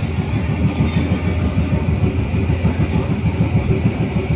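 Local passenger train running along the track: a steady, loud low rumble with fast, irregular rattling.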